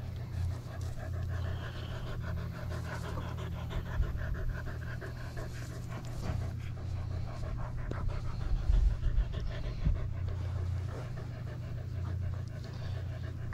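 A dog panting rhythmically in quick, short breaths. Under it runs a low rumble on the microphone, loudest around eight to nine seconds in.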